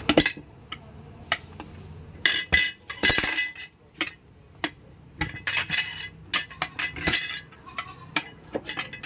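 Steel tyre levers and tools clinking and clanking against a steel truck wheel rim as the tyre is worked off: an irregular string of sharp metallic clinks, each ringing briefly.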